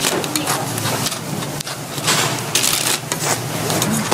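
Hotteok sizzling in oil on a flat metal griddle, with sharp clicks of metal tongs tapping the griddle; the sizzle swells about two seconds in.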